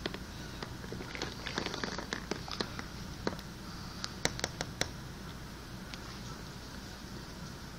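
Quiet room noise: a low steady hum with scattered small ticks and clicks, most of them in the middle of the stretch.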